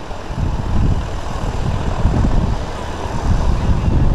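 Light propeller aeroplane's engine running as it comes in to land and passes by.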